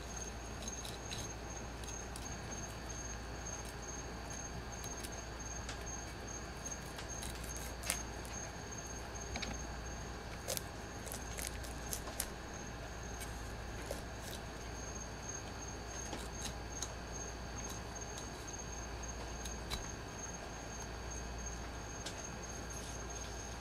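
Quiet steady ambience: a high, faintly pulsing trill and a few steady tones over a low hum, with scattered light clicks and taps.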